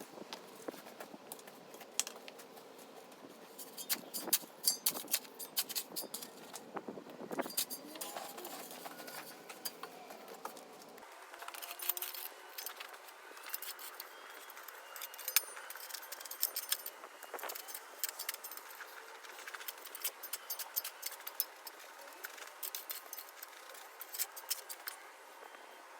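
Irregular clinks, clatters and scrapes of digging tools and crushed stone being worked in a hole. The background changes abruptly about eleven seconds in.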